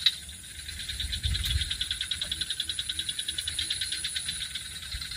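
A chorus of calling frogs and insects: a steady, high-pitched trill pulsing many times a second, with a brief low rumble about a second in.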